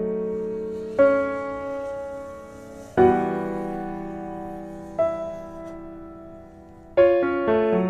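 Piano music: slow sustained chords struck about every two seconds, each fading away, with quicker notes starting near the end.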